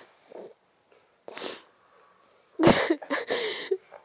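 A woman crying: a sniffling breath about a second and a half in, then a louder, shaky sob with short catches in the voice near the three-second mark.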